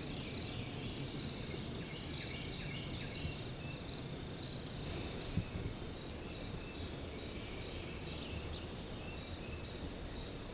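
Outdoor field ambience: a steady high insect trill, with short high chirps repeating about every 0.7 s through the first half and fainter bird calls, over a low background rumble.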